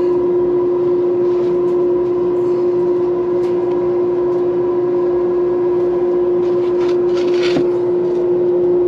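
Draft fan of a Crown Royal 7400E outdoor wood boiler running with the boiler switched to load, a loud steady hum on one unchanging tone. The fan is pulling the fire down through the nozzle into the lower burn chamber.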